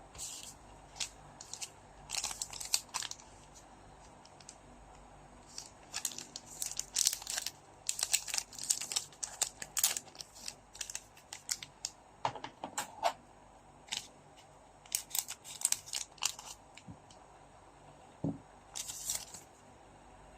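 Trading-card packs being handled and opened: their wrappers crinkle and tear in irregular clusters of short, crisp rustles, busiest in the middle stretch.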